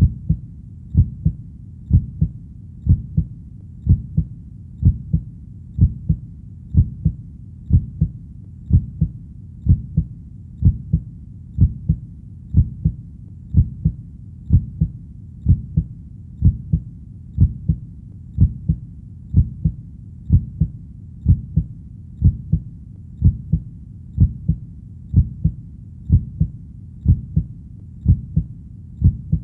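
Heartbeat: a steady low double thump, lub-dub, repeating evenly about once a second.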